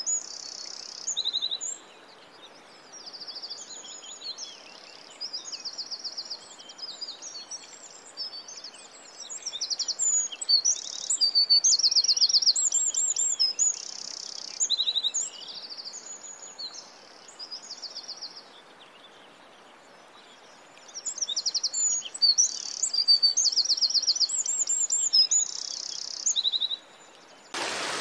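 Songbirds chirping and singing in quick, high-pitched trills and repeated notes, thinning out for a few seconds about two-thirds of the way through. Just before the end it cuts abruptly to steady rushing water.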